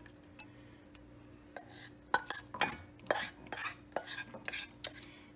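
A metal utensil scraping and tapping against a stainless steel mixing bowl as salad is spooned out of it into a serving bowl. It comes as a run of about ten short scrapes and clinks, starting about a second and a half in.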